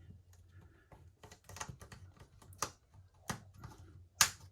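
Light, scattered clicks and taps of a smartphone's internal plate being handled and fitted back into the phone, about five sharp clicks, the loudest near the end.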